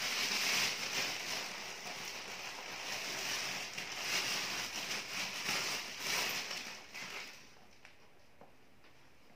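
Clear plastic bag crinkling and rustling as hands rummage inside it, stopping near the end.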